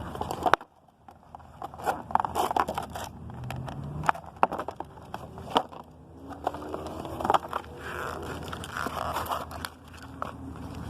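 Toy box packaging handled and tugged to free a figure: an irregular run of scrapes, crackles and clicks.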